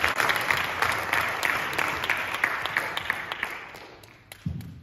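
Audience applauding, a dense patter of hand claps that dies away over the last second or so. A single dull thump comes near the end.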